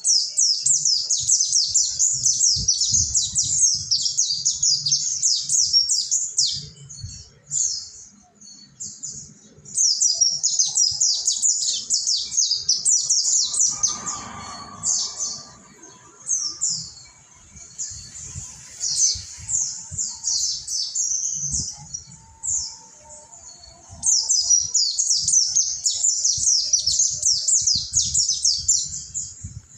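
A group of mountain white-eyes (pleci monty) twittering together in a dense chorus of fast, high, falling chirps. It comes in long stretches, easing off briefly about a third of the way through and again about two-thirds through.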